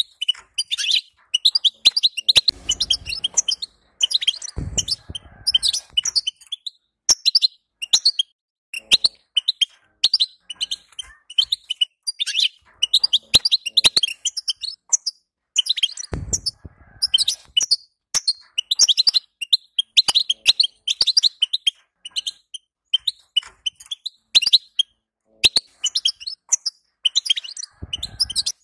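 European goldfinch twittering: rapid high chattering notes in phrases broken by short pauses. This is the 'betbta' chatter of the female, used to excite a male goldfinch into song. A few soft low thuds fall among the phrases.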